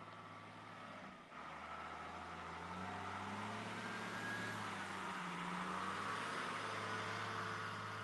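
Wheel loader's diesel engine running as the machine drives past, a low steady drone that grows louder after about a second and a half, its pitch shifting slightly.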